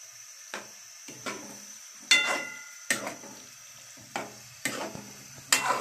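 Spatula stirring liver in a thick tomato masala in a frying pan: a scrape about every 0.7 s over a faint sizzle. The loudest stroke, about two seconds in, clinks with a short metallic ring.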